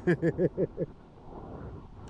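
A man laughing in a quick run of short pitched 'ha' sounds for about a second, then a low steady background rush.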